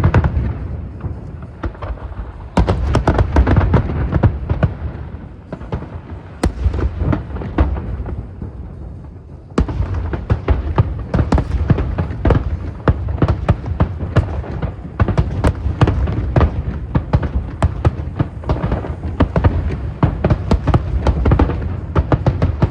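Fireworks display: many rapid, overlapping bangs and crackles of bursting fireworks. They thin out for a few seconds in the first half, then pick up into a dense, continuous barrage from about ten seconds in.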